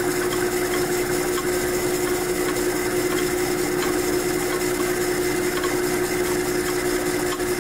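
Metal lathe running at steady speed while a boring bar takes a slow cut inside the steel body of a Jacobs 16N drill chuck: a steady hum with a constant tone and a scraping cutting noise over it.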